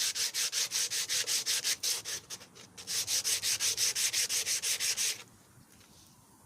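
Sandpaper rubbed back and forth by hand over a car side mirror housing, taking off the old paint. The strokes come quick and even, about five a second, pause briefly about two seconds in, then stop abruptly about five seconds in.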